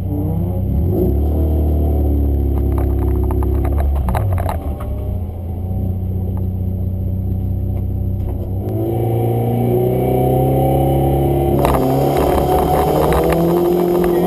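Fiat Seicento Sporting's 1.2-litre eight-valve four-cylinder engine heard from inside the cabin, running at steady revs for the first few seconds, then revving up hard and pulling through the gears from about nine seconds in. A hiss of tyre and road noise joins near the end as the car picks up speed.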